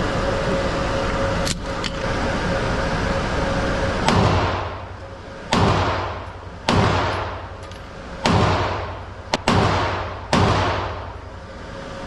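Gunshots fired at a shooting range: about seven sharp shots at irregular spacing, two of them nearly together near the end. Each shot trails off in a long echo.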